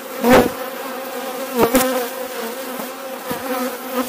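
Honeybee colony buzzing steadily on a brood frame held over an open hive, a low even hum. A few brief thumps cut through it, the loudest about a third of a second in and two close together near the middle.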